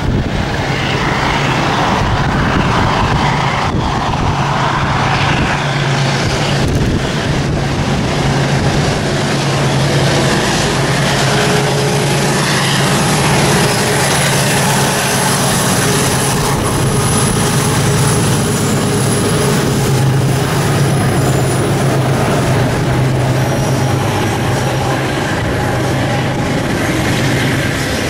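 A train running past with a steady low engine drone under dense rail and wheel noise.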